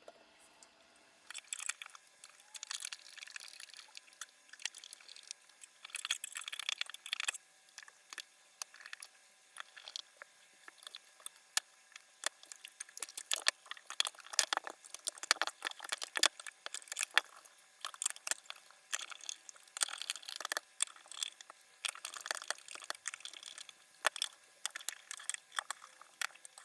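Hands handling and working on small hard computer parts: irregular clicks, scrapes and crinkly rustling in clusters with short pauses.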